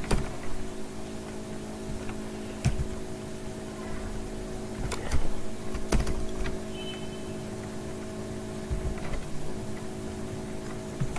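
A few scattered computer keyboard and mouse clicks, a second or more apart, over a steady low hum.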